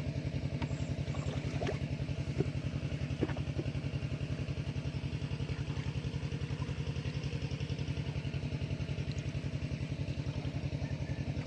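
Small engine running steadily at an even speed, with a rapid low chugging pulse, and a few light knocks in the first few seconds.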